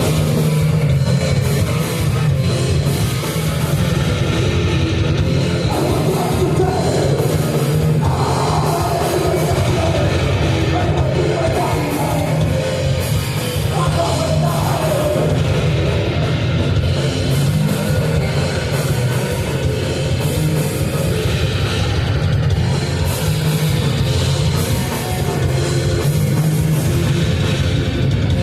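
Live metal band playing a song, loud and without a break.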